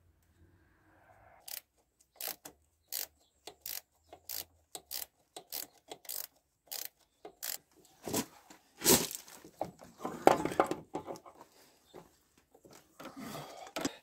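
Ratchet clicking in a slow, fairly even run as the nut on the tractor's starter solenoid terminal is undone. Louder metallic scraping and clunking follow near the end as the cable lug and nut come off.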